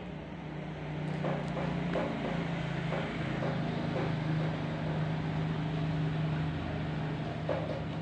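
A motorcycle passing on the road, its engine running steadily, growing louder from about a second in and easing off near the end. A few short knocks sound over it.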